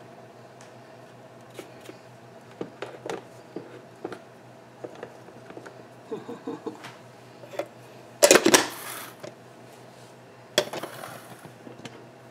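Small plastic clicks and knocks from a grind-and-brew coffee maker's lid and parts being handled and fitted, with two louder, longer clattering bursts later on.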